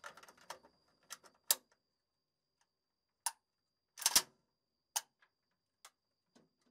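Scattered sharp metallic clicks and light knocks at irregular intervals as an AK-type rifle is handled in the firing port of a BMP-1's hull, with a double knock about four seconds in. A faint steady high tone sits underneath.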